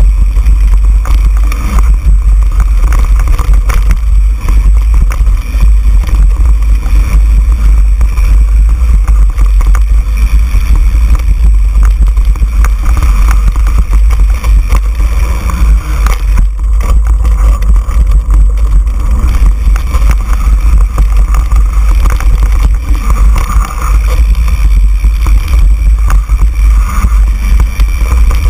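Heavy wind rumble on the microphone of a mountain bike's handlebar-mounted camera as the bike descends a dirt trail, with steady rattling and knocking of the bike and tyres over the bumps.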